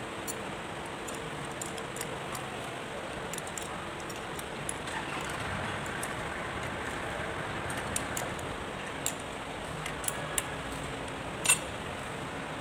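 Metal hand tools clicking and clinking against the rocker arms and valve adjusters of a Kubota Z851 two-cylinder diesel head: a scatter of light clicks with one sharper clink near the end, over a steady hiss.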